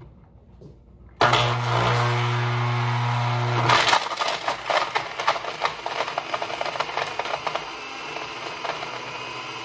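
Countertop blender switching on about a second in and pureeing frozen butternut squash chunks. For the first couple of seconds it gives a steady loud motor hum. Then the chunks rattle and clatter against the jar, and the sound slowly eases as the squash breaks down.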